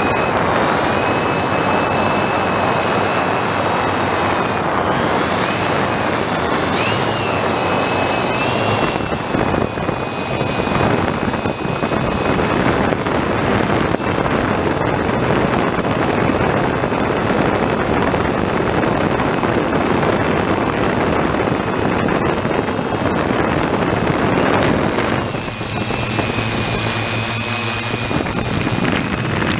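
A multirotor drone's electric motors and propellers heard from the onboard camera in flight: a steady, loud rushing whir with a thin high whine that wavers in pitch a few times.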